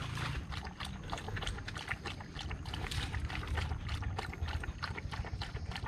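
Footsteps on a rough hiking trail: a quick, irregular run of clicks and scuffs over a steady low rumble.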